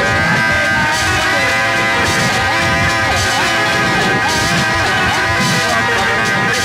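Lo-fi cassette-recorded music: a stack of held, droning tones over a dense, busy low texture. Through the middle a pitched line repeatedly swoops down and back up.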